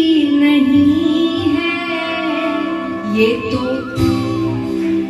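A woman singing a Hindi devotional bhajan with instrumental accompaniment, played on a television. Her voice holds long notes and glides between pitches over a steady backing.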